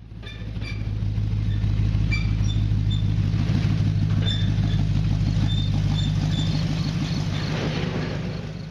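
A motor vehicle's engine running steadily with a low, pulsing drone, faded in at the start and out at the end, with faint short high chirps over it.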